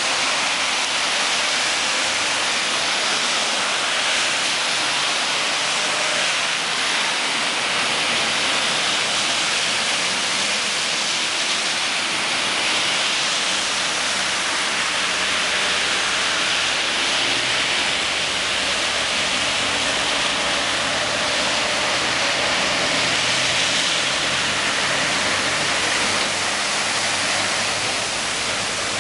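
Steady rushing water noise of traffic driving through a flooded road, tyres throwing up sheets of spray. A low engine rumble joins about halfway through and again near the end as a car and then a lorry pass through the water.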